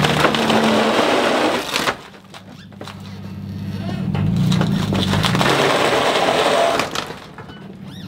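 Plywood cracking and splintering under a loaded pallet carrying a 2,000-pound feed tote as it is forced over the trailer's lip, with a truck engine running under strain. The cracking and grinding come in two loud spells, the second building up about halfway through.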